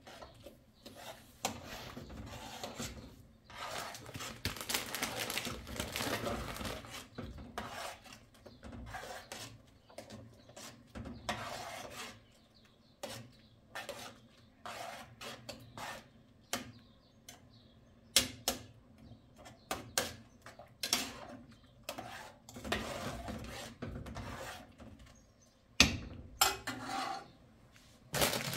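Spoon stirring and scraping in a metal cooking pot on a gas stove, with sharp clinks of metal on metal now and then.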